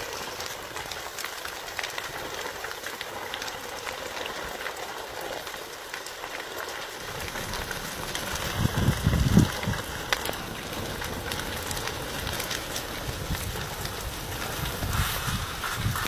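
A fully involved building fire burning: a steady crackling hiss with many sharp pops and snaps. A low rumble a little past halfway is the loudest moment.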